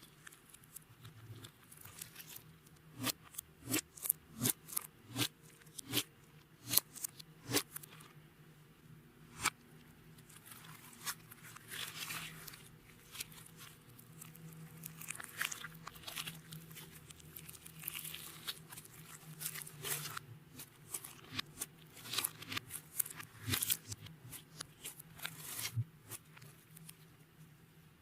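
Clear slime being worked by hand, with sharp sticky pops and clicks, then a denser run of crackling.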